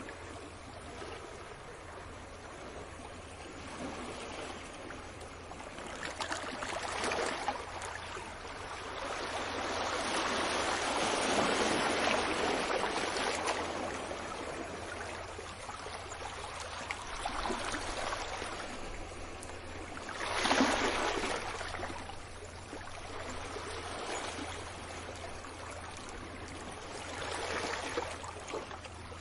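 Sea waves washing onto a beach: a noisy surf wash that swells and recedes in irregular surges, with one sharp, louder break about two-thirds of the way through.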